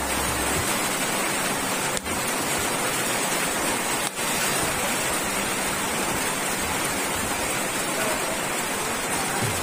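Steady, even rushing noise of water, like heavy rain or a fast stream. It drowns out any knife work and dips out briefly twice.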